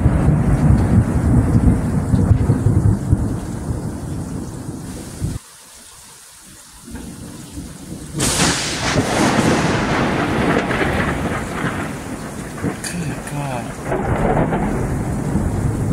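Thunder rumbling loudly and fading over several seconds. After a short lull, a sudden sharp thunderclap from lightning striking close by hits about eight seconds in, followed by rolling rumble over a steady hiss of rain.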